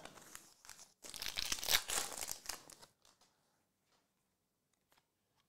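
Crinkly rustling of a stack of trading cards being handled and shuffled in the hands, lasting about three seconds and then stopping.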